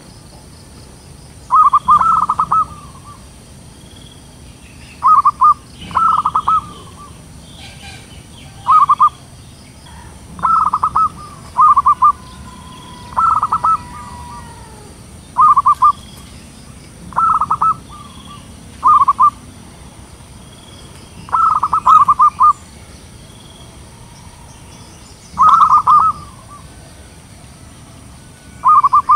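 Zebra dove (perkutut) cooing: about a dozen phrases, each a rapid string of short staccato coos lasting up to a second or so, repeated with pauses of one to three seconds.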